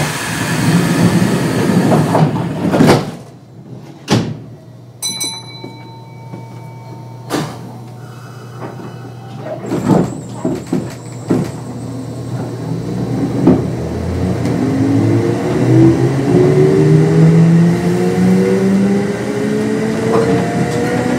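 Kintetsu 2610 series resistance-controlled electric train: the doors shut with a thud at the start, then come several knocks and clicks and a brief electronic tone. From about halfway through, the train pulls away, its traction motors and gears whining in pitches that rise steadily as it gathers speed.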